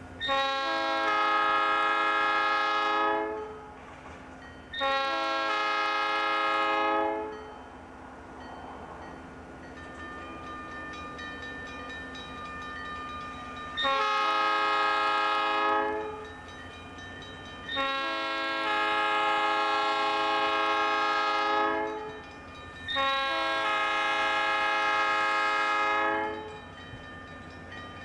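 Southern Pacific diesel locomotive's multi-chime air horn sounding for a grade crossing: five long blasts of two to four seconds each, with the quieter running of the approaching train between them.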